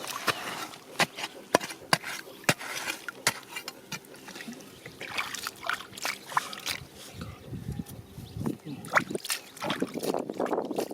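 Water splashing and trickling, with many irregular sharp knocks and clicks.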